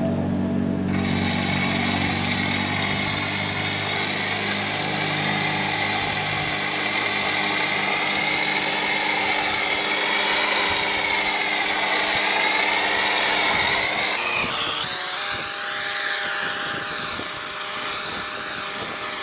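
Pressure washer running and spraying: a steady motor hum under a loud hiss of spray. The low hum drops away and the tone shifts about fourteen seconds in.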